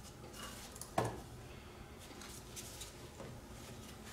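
Faint handling noises of a carburetor being worked back into place on an ATV: soft scrapes and rustles, with one sharp knock about a second in.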